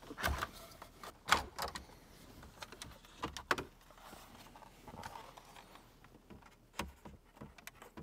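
Hard plastic dash trim bezel being handled and shifted, giving scattered irregular clicks and knocks of plastic, the loudest about a second and a half in.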